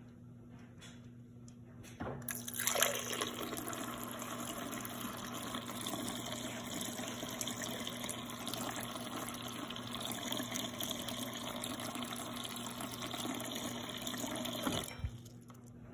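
Refrigerator door water dispenser running in a steady stream, splashing into a glass and over the drip tray. It starts suddenly about two seconds in and cuts off sharply near the end.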